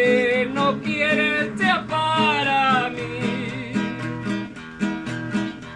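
Singing of a Spanish-language folk song over strummed acoustic guitar; the voice stops about three seconds in and the guitar strumming carries on alone.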